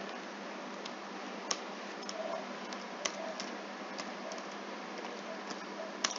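Computer keyboard keys clicking as code is typed: a handful of separate keystrokes, spaced unevenly about half a second to a second apart, over a steady hiss and low hum.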